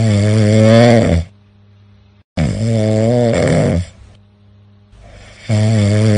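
A person snoring loudly: three long, pitched snores, each lasting a second or more and coming about every two and a half seconds, with quiet gaps between them.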